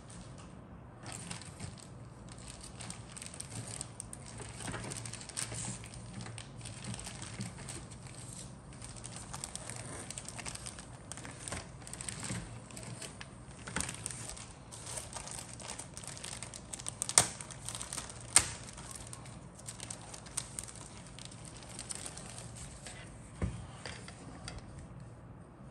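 Clear plastic bag crinkling and rustling as plastic model-kit sprues are handled and drawn out of it, with two sharp clicks about two-thirds of the way through.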